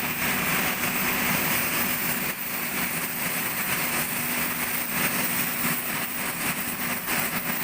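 Steady mechanical noise of workshop machinery running, with a faint low hum that fades out about two seconds in.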